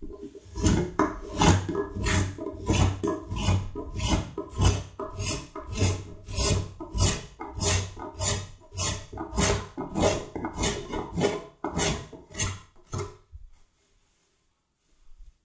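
Hand-tool strokes shaping the edge of a wooden Windsor chair seat, a quick regular rhythm of about two strokes a second that stops about two seconds before the end.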